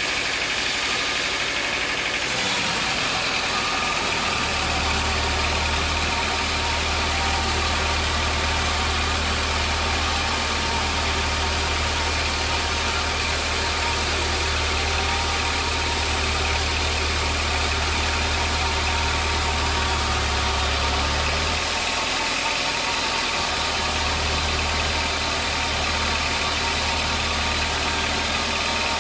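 Sawmill machinery running steadily with a continuous mechanical hum. A deep low rumble comes in a few seconds in, drops out for about two seconds past the middle, then returns.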